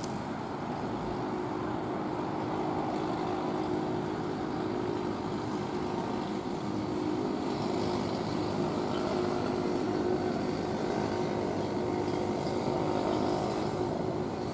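Open freight wagons of a slowing freight train rolling past on the rails: a steady rumble of wheels on track, with a faint high hiss joining about halfway through.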